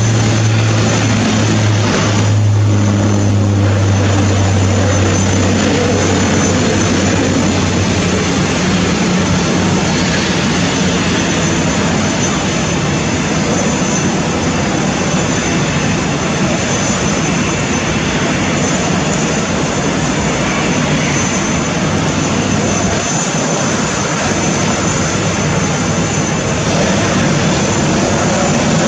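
Airbus A380's four turbofan engines running, a steady rush of noise with a low hum underneath that fades after about six seconds.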